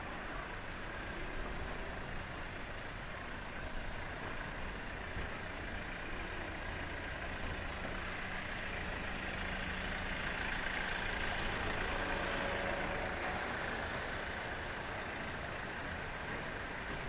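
Street ambience dominated by a car engine running nearby, its sound swelling gently about ten seconds in and then easing off.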